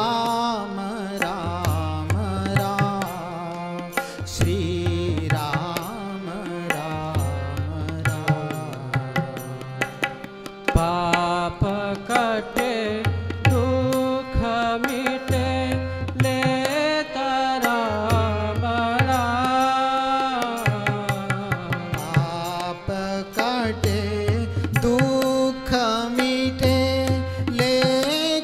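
Hindu devotional kirtan: a man singing a bhajan over harmonium, with tabla strokes keeping the rhythm and low bass-drum booms recurring every couple of seconds.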